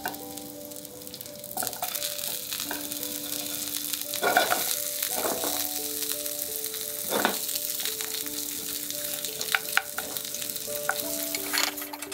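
Eggplant and zucchini sizzling as they sauté in olive oil in a frying pan, the hiss building over the first couple of seconds. A few louder strokes near the middle come from stirring the pan. Soft background music with held notes plays underneath.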